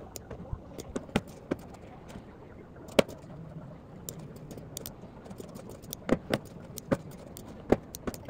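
Typing on a mechanical keyboard: irregular, unhurried key clacks, with one louder clack about three seconds in.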